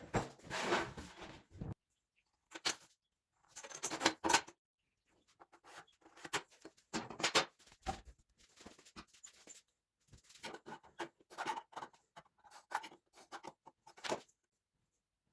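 Short, irregular bursts of scraping and rustling handling noise, separated by stretches of dead silence.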